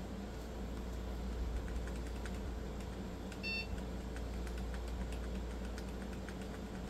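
Desktop PC fans humming steadily, with scattered light keyboard key clicks and a single short electronic beep about three and a half seconds in as the computer boots.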